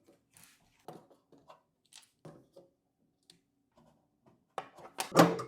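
A hard drive being taken out of a desktop computer case: scattered light clicks, knocks and scrapes of handling, with a few louder clicks near the end.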